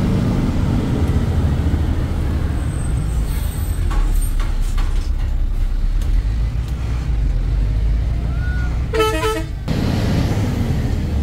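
Truck engine running steadily, heard from inside the cab while driving, with a short vehicle horn blast about nine seconds in.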